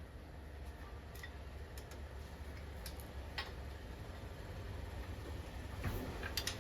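Scattered light clicks and taps from hand tools working on a car's exhaust manifold, irregular rather than rhythmic, a few close together near the end, over a low steady hum.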